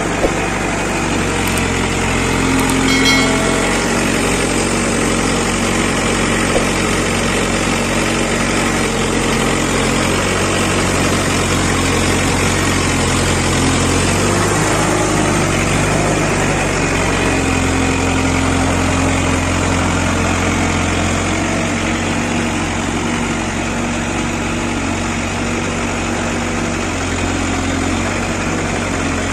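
Heavy diesel machinery engine running steadily at a low, even speed, its note shifting briefly about halfway through.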